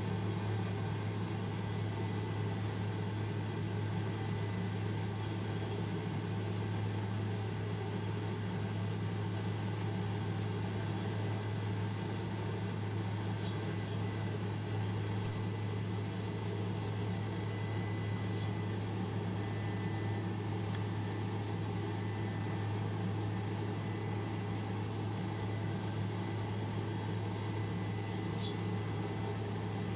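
Helicopter cabin noise: the steady drone of the engine and rotor, with a strong low hum.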